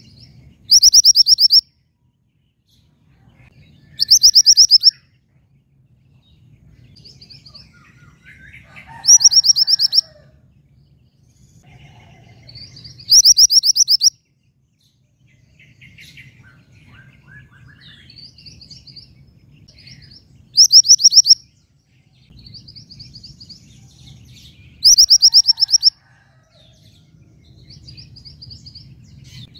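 A female mantenan gunung songbird calling to a male: six loud, rapid, high-pitched trills about a second long, repeated every few seconds, with fainter short chirps between them.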